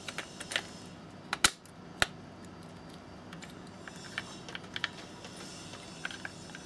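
Small hard clicks and knocks of a circuit board and plastic control-panel housing being handled and pressed together by hand: two sharper knocks about a second and a half and two seconds in, then lighter scattered clicks.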